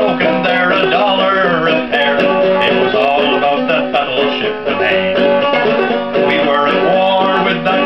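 Five-string banjo played clawhammer style in open G tuning, a steady run of plucked notes over ringing open strings.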